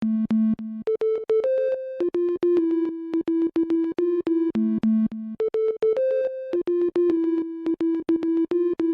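Synthesizer music: a short looping melody of plucked-sounding notes, the phrase repeating about every four and a half seconds.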